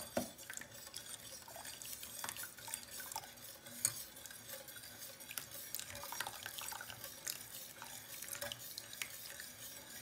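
Wire whisk stirring hot chicken broth in a stainless steel pot: faint sloshing with many light ticks of the wires against the pot, and one sharper clink about four seconds in. Beaten egg and lemon is being whisked in slowly so the egg does not curdle.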